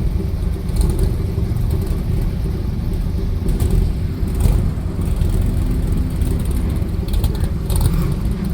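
Classic cars' big-block engines running with a steady low rumble, with a few short clicks near the middle and near the end.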